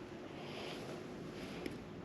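Faint handling sounds of brake pad pins being refitted into a motorcycle brake caliper with needle nose pliers: soft rustling and one small sharp click about one and a half seconds in, over a low steady hum.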